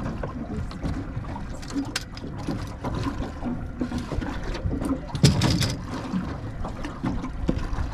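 Water slapping against a small aluminium boat's hull, with wind on the microphone and scattered clicks and knocks, one louder knock about five seconds in.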